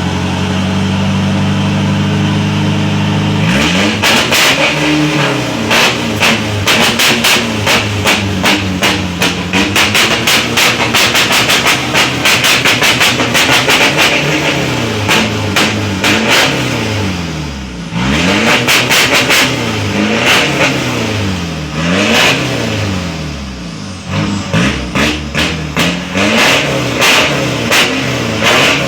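Diesel engine with a custom exhaust idling steadily for a few seconds, then revved over and over, its pitch climbing and dropping in quick blips, with a couple of short lulls where the revs fall away.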